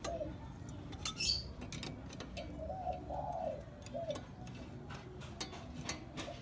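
A dove cooing several times in short arched notes. Scattered light clicks and one sharp metallic clink about a second in come from hand tools on metal.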